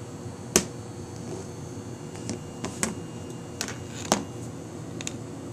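Sharp clicks from handling an Italian stiletto switchblade: one loud snap about half a second in, then five or so lighter clicks spread through the rest.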